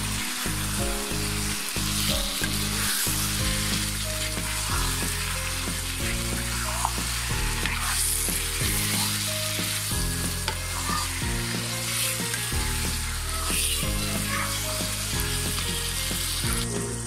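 Mutton pieces sizzling in spiced oil in a non-stick pan as they are stirred and turned with a wooden spatula, with occasional scrapes of the spatula; this is the kosha stage, browning the marinated meat in the masala. Background music plays underneath.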